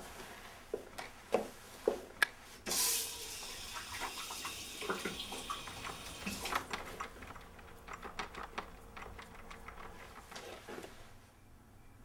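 Running water, coming on with a sudden gush about three seconds in and then running on more softly, with scattered clicks and knocks throughout; it dies away shortly before the end.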